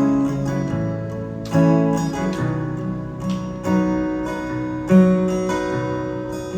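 Acoustic guitar playing the song's instrumental introduction, strummed chords ringing out with a new strum every second or so.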